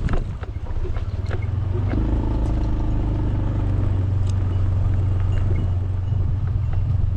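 A small motorcycle's engine running as the bike rides closer along a dirt track, its engine note clearest for a couple of seconds about two seconds in. A steady low rumble runs underneath, with a few scattered sharp clicks.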